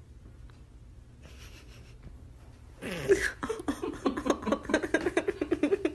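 Faint room tone, then about three seconds in a person breaks into rapid giggling, a run of short pitched pulses about eight a second.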